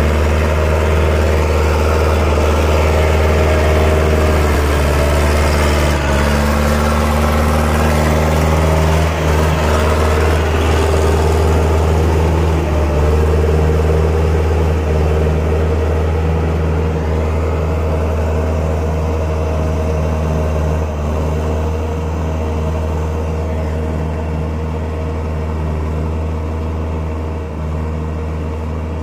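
Farm tractor engine running steadily under load as it pulls a tillage implement through a flooded, muddy rice paddy, with a deep continuous hum. It grows a little quieter near the end as the tractor moves away.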